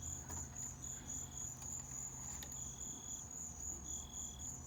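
Crickets chirping in a continuous high, pulsing trill, with a lower insect trill coming and going about every second and a half over a faint low hum.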